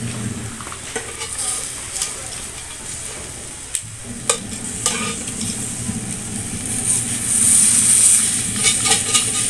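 Whole tuna sizzling on a cast-iron grill pan over charcoal, with scattered sharp clicks of metal tongs and spatula against the pan. About seven seconds in the sizzle grows louder as the fish is lifted and turned over onto its other side.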